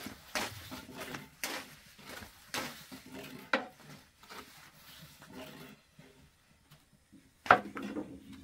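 Thin wooden rolling pins rolling and knocking against round wooden boards as flatbread dough is rolled out and stretched thin, in a run of irregular clacks. After a short lull, one louder knock comes about seven and a half seconds in.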